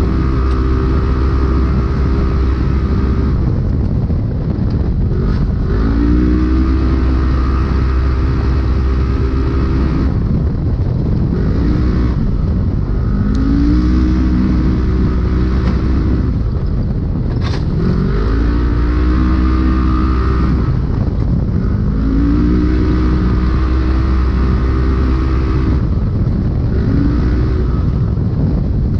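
Polaris RZR UTV engine heard from inside the cab at race speed, held at high revs for a few seconds at a time, then dropping off and climbing back up every four or five seconds as the throttle is lifted and reapplied over rough desert terrain. Wind and chassis rattle run underneath, with one sharp knock about two-thirds of the way through.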